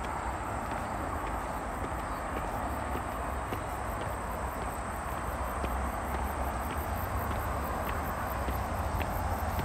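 Steady outdoor background noise with a low rumble, scattered light ticks and a faint rapid high-pitched pulsing.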